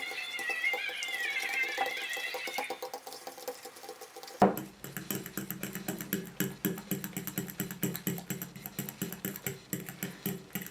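Metal fork mashing banana in a bowl: rapid, irregular clicks and scrapes against the bowl. A high, wavering cry is heard over the first few seconds, and a steady low hum comes in abruptly about four seconds in.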